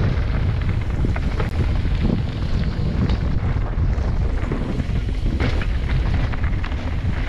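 Wind buffeting a helmet-mounted camera's microphone during a fast mountain-bike descent on a dirt trail, a steady low rumble with scattered ticks and clatter from the bike and its tyres on the dirt. The sound cuts out for an instant about one and a half seconds in.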